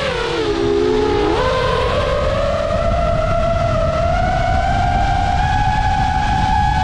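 DJI FPV drone's motors and propellers whining. The pitch drops sharply in the first second or so as the throttle comes off, then climbs slowly and steadily as the throttle goes back on, over a low rumble.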